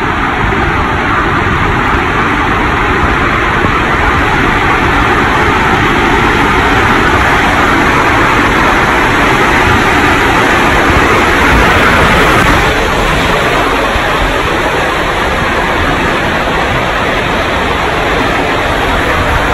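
Steady, loud rushing noise of water over a phone's microphone held underwater.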